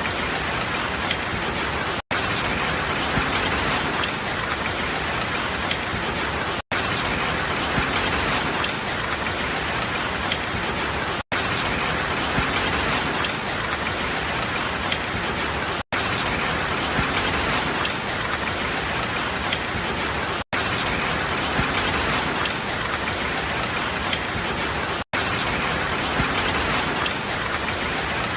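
Steady rain falling and pattering on a surface, with individual drops ticking through it. The sound cuts out for a split second about every four and a half seconds.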